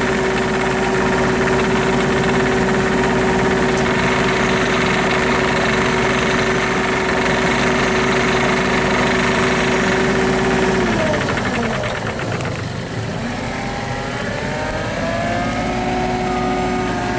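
Kubota U-30 mini excavator's diesel engine running at a steady speed. About eleven seconds in its pitch drops sharply, then climbs back gradually over the next few seconds.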